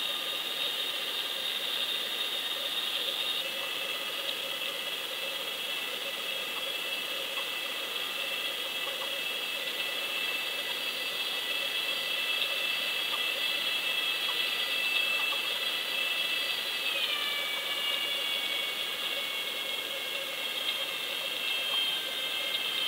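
A trolling boat's motor and propeller heard underwater: a steady whine of several held tones over a faint hiss. The tones step down in pitch about seventeen seconds in.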